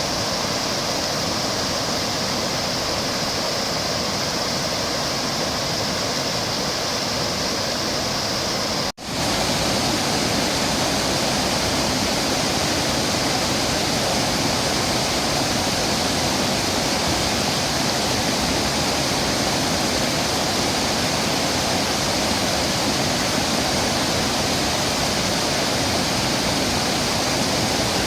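A waterfall: a steady, unbroken rush of falling and splashing water. About nine seconds in it cuts out for an instant, then resumes a little louder.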